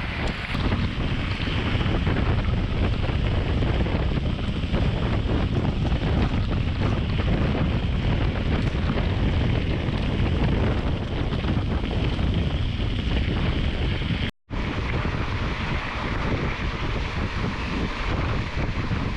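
Wind buffeting a bike-mounted action camera's microphone over the rolling noise of mountain bike tyres on a gravel road. The sound cuts out for a moment about 14 seconds in.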